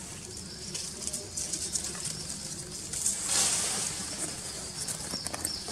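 Low cooing bird calls in outdoor ambience. A brief rustling hiss comes about three seconds in.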